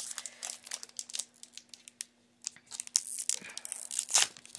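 Crinkling and tearing of a hockey card pack's wrapper as it is worked open, in irregular rustles with a short pause near the middle and the sharpest rips about three and four seconds in.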